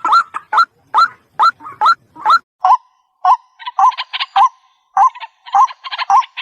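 White-breasted waterhen (ruak-ruak) calling: a fast series of short rising notes, about two a second, which shifts about halfway to a lower, repeated note with a harsher chattering call over it.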